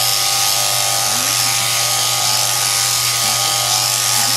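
Sheep-shearing handpiece on an overhead-driven shearing machine running steadily as it cuts through a sheep's fleece. A constant hum with a high hiss, not changing in speed.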